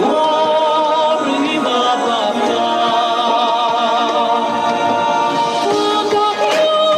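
Music: sung melody with long, wavering held notes over an accompaniment.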